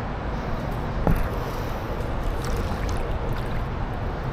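Steady rush of river water close to the microphone, with one light knock about a second in.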